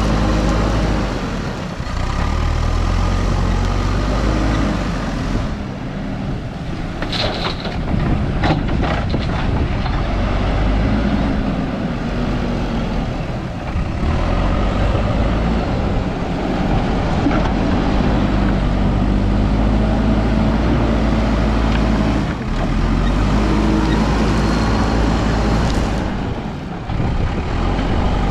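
Diesel engine of a JCB 3DX backhoe loader running hard under hydraulic load, its revs rising and falling several times. A short run of sharp knocks about seven to nine seconds in.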